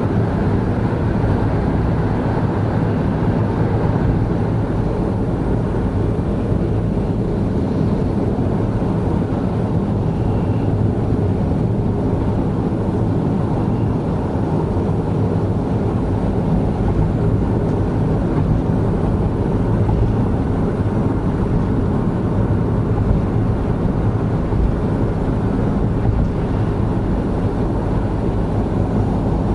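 Steady engine and tyre road noise of a 2017 Honda N-BOX Custom kei car with a 660 cc intercooled turbo engine, cruising at expressway speed, heard from inside the cabin.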